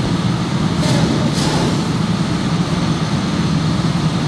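A line of go-kart engines idling together as the karts wait in the pit lane, a steady low rumble.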